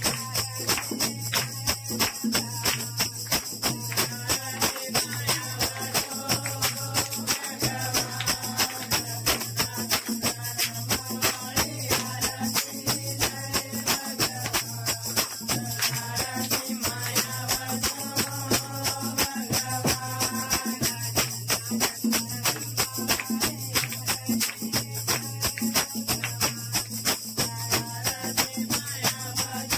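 Devotional aarti song: a voice singing over a fast, even beat of jingling percussion.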